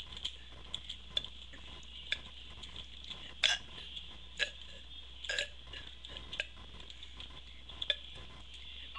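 A woman's deliberate burps, brought up without soda: a string of short burps every second or so, the loudest about three and a half seconds in.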